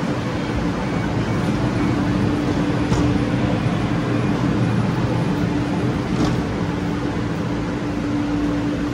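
Steady hum of a Calgary CTrain light-rail car standing at the platform, with a constant low tone over the noise.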